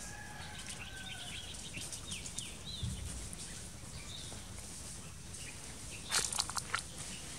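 Outdoor background with a steady low rumble. A few faint high chirps sound in the first three seconds, and a quick cluster of sharp clicks and rustling comes about six seconds in, the loudest sound.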